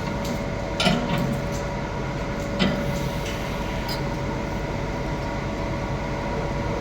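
Electric arc welding on a pipe root pass: a continuous steady crackling hiss with a constant tone underneath. Two short knocks come about one second and two and a half seconds in.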